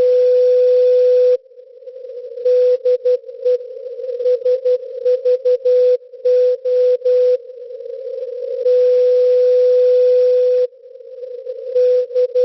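Morse code from the maritime coast station SVO Olympia Radio on 8424 kHz, heard through a shortwave receiver in CW mode as a single steady beep keyed into dots and dashes. Two long steady tones of about two seconds each, one at the start and one past the middle, frame a run of the call-sign keying. Between the tones, narrow filtered static hiss swells up.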